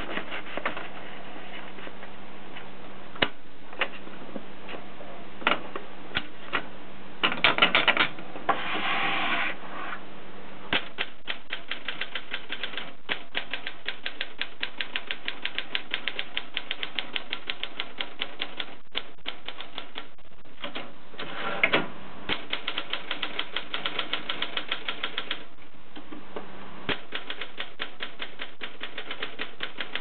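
Adler Gabriele manual typewriter: first scattered clicks and a louder clatter as the sheet of paper is fed in, then steady typing with the typebars striking several times a second. A brief louder clatter comes about two-thirds of the way through, and there is a short pause before the typing resumes near the end.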